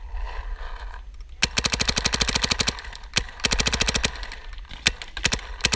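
Paintball marker firing rapid strings of shots: about a second and a half in, a fast string lasting about a second, then a single shot, another fast string, and a few separate shots near the end.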